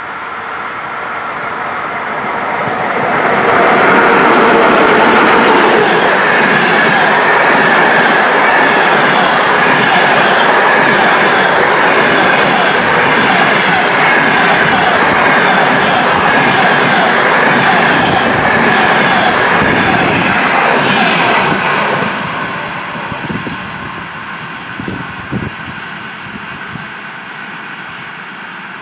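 ChS8 electric locomotive and its passenger coaches passing at speed: the noise builds as the locomotive comes up, then a steady rush of wheels on rails with clickety-clack and a high steady note while the coaches go by. About 22 seconds in it drops away as the last coach recedes, with a few sharp knocks shortly after.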